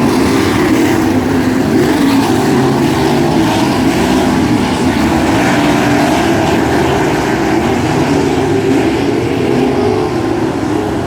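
A field of 360 sprint cars racing, their 360 cubic-inch V8 engines running loud at speed, the pitch of the pack wavering up and down together.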